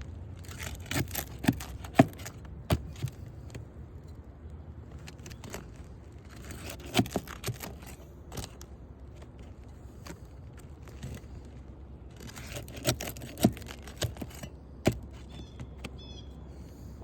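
A metal pry bar working under asphalt roof shingles to pull roofing nails: sharp metallic clicks, knocks and scraping in short clusters, with pauses between them.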